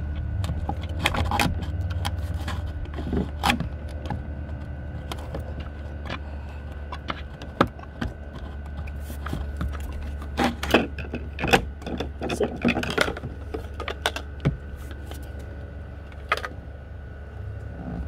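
Handling of a home-built PVC pipe transducer mount as it is worked loose and lifted off its 3D-printed deck base: scattered plastic clicks, knocks and scrapes, busiest about two-thirds of the way through, over a steady low hum.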